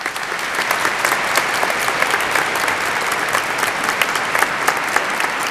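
Audience applauding: many hands clapping in a dense, steady round that starts at once and holds.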